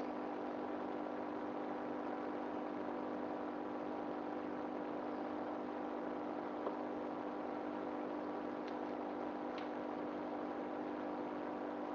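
Steady, even hum of a small motor running, with one faint click a little past halfway.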